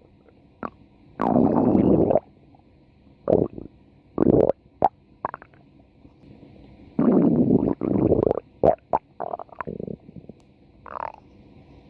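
Human stomach growling in a run of irregular rumbles: two long ones starting about a second in and about seven seconds in, with shorter ones between and after.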